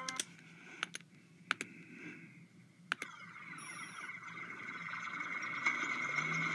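Four sharp computer clicks, spaced roughly a second apart, over a quiet background. Then, from about three seconds in, a film soundtrack fades in: a steady rushing noise with a high hum, growing louder.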